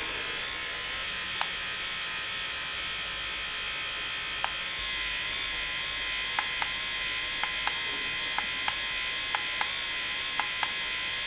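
Old washing-machine commutator motor running steadily at about 3,700 rpm, with an even high-pitched brush hiss and whine. From about six seconds in, faint short clicks come at irregular intervals.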